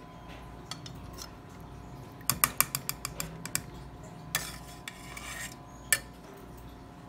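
Metal kitchenware clinking and clattering against a wire rack and pan as marinated chicken pieces are laid out: a quick run of sharp clinks a little over two seconds in, a short scrape, then one more clink.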